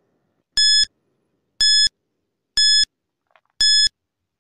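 Countdown timer beeps: four short, identical electronic beeps, one a second, each about a quarter of a second long.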